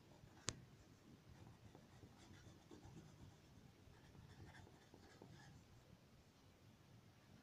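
Faint scratching of a crayon rubbed back and forth over paper while colouring in, with one sharp click about half a second in.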